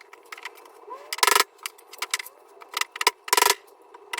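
A mallet tapping dowels into the holes of a shelf side. Two hard strikes come about two seconds apart, with lighter taps and clicks between them.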